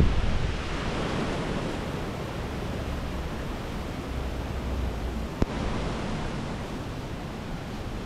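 Steady rush of sea surf, with wind buffeting the microphone, strongest at the start. One sharp click about five and a half seconds in.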